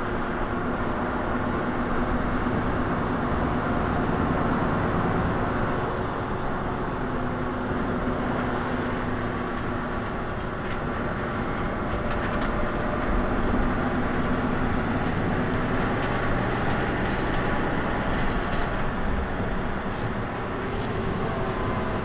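Mercedes-Benz Citaro C2 city bus standing with its engine idling: a steady mechanical hum with a tone that comes and goes a few times, and faint ticks.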